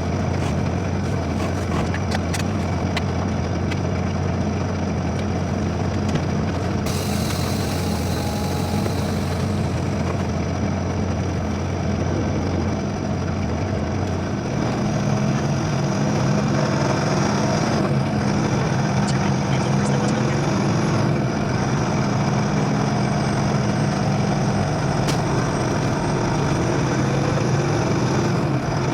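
Semi truck's diesel engine running with a steady low drone that steps up in pitch about halfway through and holds there.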